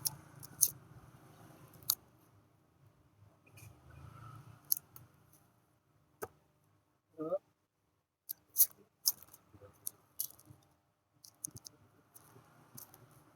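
Quiet handling of paper and craft tools: scattered sharp clicks and light rustles, with a brief squeak about seven seconds in.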